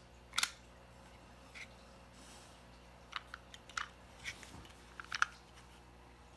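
Wire-bristle slicker brush scratching through a dog's coat in short, irregular strokes, several scratches with the loudest a little past five seconds in.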